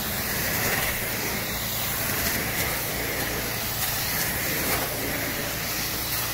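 Carpet-cleaning extraction wand spraying and vacuuming as it is pushed and pulled across a rug: a steady hiss of spray and suction over a steady low hum.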